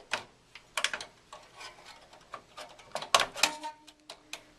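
Irregular clicks and knocks of a video card being worked into a PCIe slot in a computer case, plastic and metal tapping together. The loudest knocks come about three seconds in and are followed by a short ringing tone.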